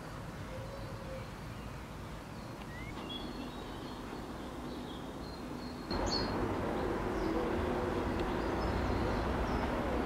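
Outdoor woodland ambience with scattered short bird chirps. About six seconds in the background jumps louder, with a low steady rumble underneath.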